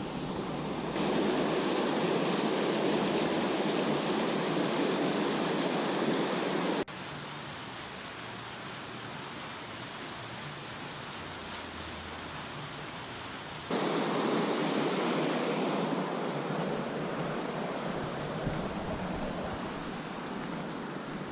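Steady rushing water pouring through a small dam, a constant even hiss. It drops to a quieter level about seven seconds in and comes back up about fourteen seconds in, with abrupt jumps at each change.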